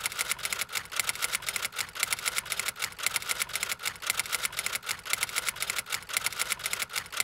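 Rapid, steady mechanical clicking, many sharp clicks a second without a break.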